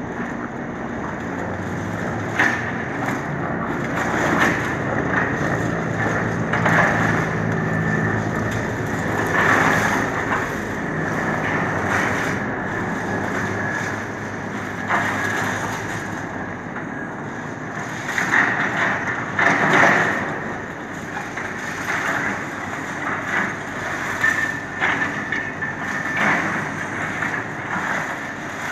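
Caterpillar tracked excavator's diesel engine running while its grapple picks through broken concrete, with repeated crunches, knocks and scraping of concrete and metal throughout.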